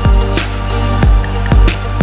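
Background music with a steady beat: a deep kick drum about twice a second, sharp snare hits between, and a held bass line.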